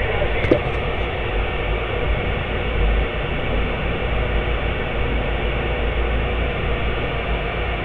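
Steady static hiss from a Dr Love 8333 CB radio's speaker on channel 6 (27.025 MHz), the squelch open with no station coming through, over a low hum. A short click comes about half a second in.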